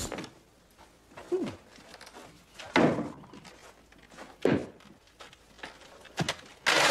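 A few separate thuds and scrapes as a wooden chair is moved across the floor and climbed on. Near the end comes a louder burst of knocking, like a knock at a door.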